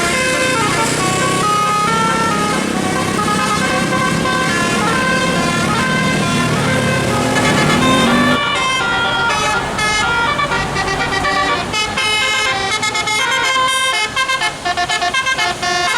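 Bus 'telolet' musical air horn playing a tune of stepped, held notes over a low engine rumble. About eight seconds in, the tune switches to a faster, choppier run of short notes.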